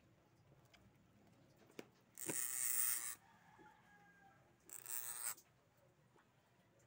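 A hamster scrabbling in wood-shaving bedding in a plastic tub. There are two bursts of rustling, scratching noise: one about two seconds in lasting nearly a second, and a shorter one near five seconds. A faint click comes just before the first.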